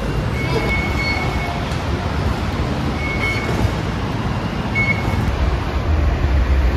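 Busy Skytrain station concourse: a steady hum of people and machinery, cut by three short, high electronic beeps from the fare gates, the first about a second in and the others about three and five seconds in. A low rumble swells near the end.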